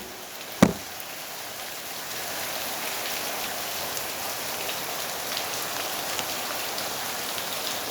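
Heavy rain falling steadily, a continuous hiss with scattered ticks of drops striking surfaces, building a little louder over the first couple of seconds. A single sharp knock about two-thirds of a second in.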